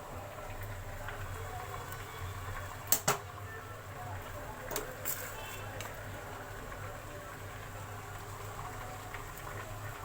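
A utensil knocks sharply on a cooking pot twice in quick succession about three seconds in, with a few lighter taps near the middle, over a steady low hum.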